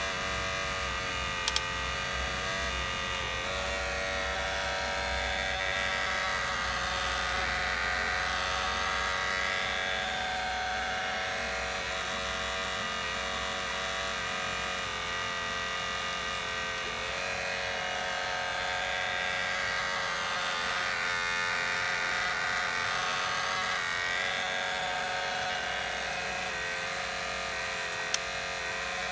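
Huina RC excavator's small electric motors whining steadily as the boom, arm and bucket work the dirt, the pitch wavering a little as the movements change. Two short clicks, one about a second and a half in and one near the end.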